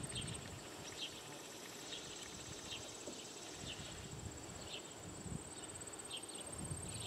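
Insects trilling: a thin, high, steady buzz that drops out shortly after the start and comes back about five seconds in, with faint short chirps about once a second.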